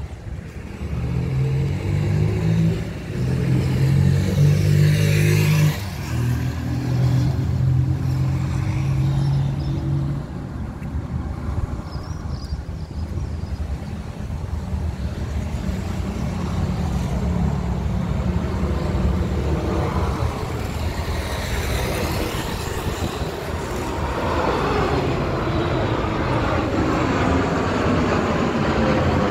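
A nearby road vehicle's engine runs for the first ten seconds or so, with something passing at about five seconds. Then the jet noise of a Boeing 737 MAX 8 on landing approach grows louder as it nears overhead, with a sweeping, phasing whoosh in it.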